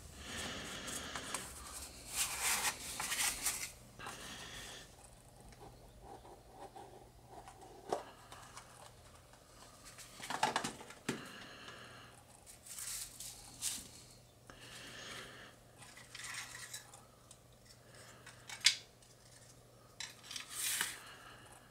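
Small cardboard kit box and its packaging handled: the lid is worked off, plastic wrap crinkles and small plastic parts click against the box, in irregular rustles with scattered clicks and one sharp click near the end.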